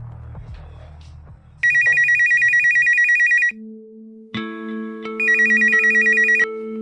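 Mobile phone ringing: a fast electronic trilling ringtone in two bursts of about one to two seconds each, with a held musical chord coming in underneath between and after them.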